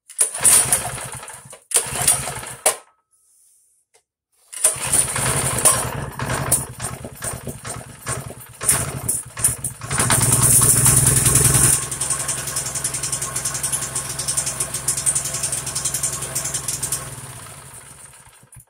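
Small single-cylinder mini bike engine pull-started on its recoil starter: two short bursts, then about four and a half seconds in it catches and runs. It revs higher for a couple of seconds, settles to a steadier run, then winds down and stops near the end.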